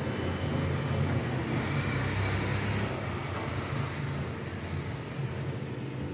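Steady low rumble of a motor vehicle engine running, with a hiss that swells briefly about two seconds in.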